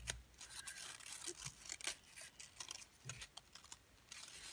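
Origami paper units rustling and crinkling in the hands as a folded unit is slid and tucked between others, with many small irregular crackles and scrapes of paper on paper.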